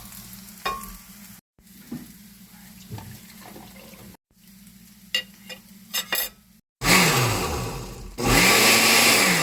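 Scattered light clicks over a low hum, then, about seven seconds in, a kitchen blender running loudly in two short bursts, its motor pitch rising and falling as it blends milk, cheese and cream.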